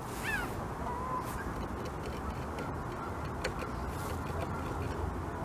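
North American beaver gnawing through a branch, its incisors scraping the wood in a few short bites, over a steady low rumble of running water. A bird gives a short falling call near the start.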